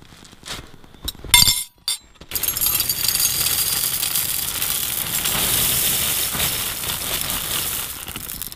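A few light clinks against a china bowl, then from about two seconds in a long, steady pour of chocolate puffed-rice cereal rattling into the bowl, tapering off near the end.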